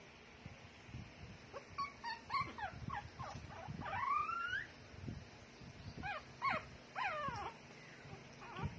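Puppy whimpering: short high squeaks that fall in pitch, a longer rising whine about four seconds in, then more quick squeaks. Soft low thumps come in between.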